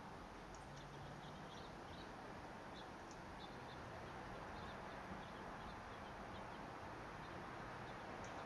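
Faint forest ambience: a steady low hiss with scattered short, high chip notes from small birds, most of them in the first half.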